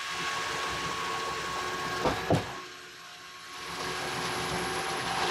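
Concrete mixer and pump machinery running with a steady mechanical noise as wet concrete pours down the chute onto the pump hopper's grate. Two sharp knocks come close together about two seconds in, and the noise drops for about a second just after.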